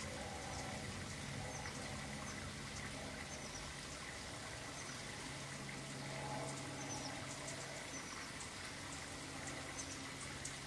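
Small birds chirping faintly, short high chirps scattered throughout and more frequent in the second half, over a steady background hum and hiss.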